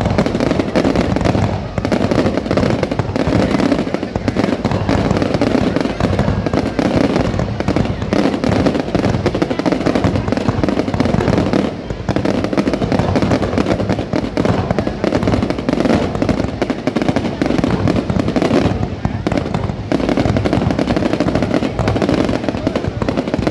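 Fireworks display in full swing: a continuous barrage of dense crackling bangs with hardly a pause.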